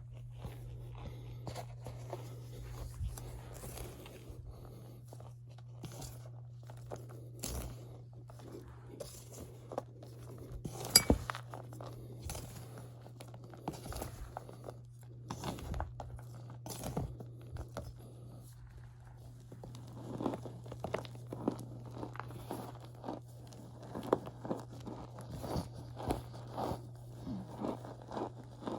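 Cornstarch being squeezed and pressed by hand, giving a run of irregular squeaky crunches, with one sharper, louder crunch about eleven seconds in. A steady low hum runs underneath.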